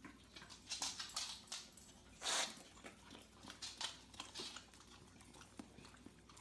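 A dog licking and smacking its lips: rapid small wet clicks and ticks, with one short hiss about two seconds in.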